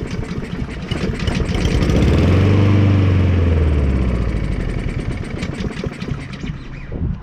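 Honda Harmony II lawnmower's single-cylinder overhead-cam engine running on starting fluid, surging up to a peak about two to three seconds in and then sagging back down. It will not run steadily, which the owner puts down to a carburetor that needs cleaning.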